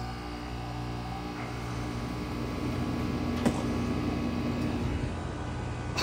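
Newly installed split-system air-conditioner condenser running just after start-up: compressor and condenser fan giving a steady hum. A single sharp click comes about three and a half seconds in.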